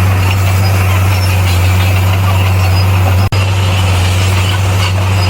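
Heavy-equipment diesel engine running steadily with a deep drone. The sound drops out for an instant about three seconds in.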